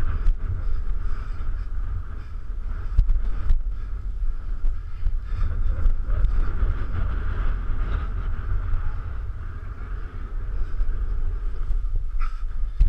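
Wind buffeting the microphone of a body-mounted action camera: a heavy, gusting low rumble under a steady higher hiss, with a few short knocks.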